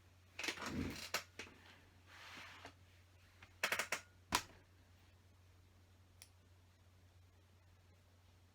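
LEGO bricks being handled and pressed together: a clatter of plastic clicks about half a second in, then a quick cluster of sharp clicks around four seconds.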